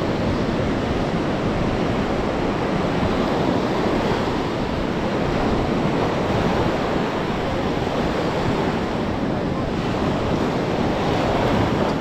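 Sea surf washing onto the beach, a steady wash of noise that swells and eases slightly, with wind rumbling on the microphone.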